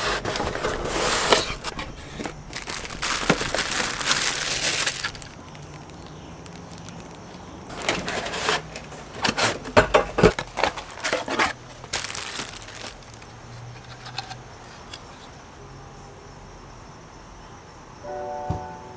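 Speaker packaging being opened and handled: crinkling and rustling in bursts, loudest in the first five seconds and again in the middle, with quieter pauses between.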